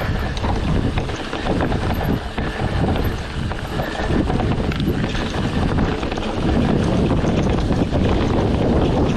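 Wind buffeting the microphone, a continuous rumble with uneven gusts.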